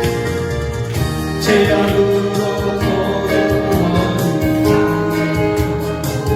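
Gospel song: singing in long held notes over instrumental accompaniment with a steady beat.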